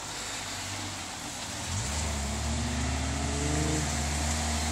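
A car engine comes in about two seconds in and revs up, its pitch climbing and then holding high, over a steady hiss of rain.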